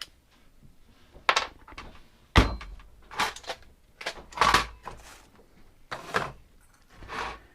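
Irregular knocks, scrapes and clatters of objects being shifted and handled, with one heavy thump about two and a half seconds in: the rummaging of someone searching for a dropped screwdriver bit.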